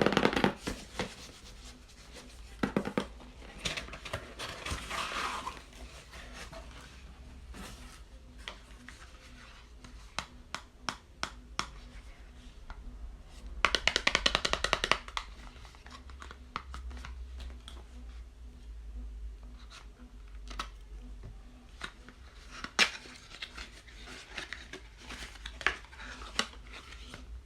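Packaging being handled and opened: irregular clicks, taps and rustling, with a rapid run of crackling or tearing about halfway through.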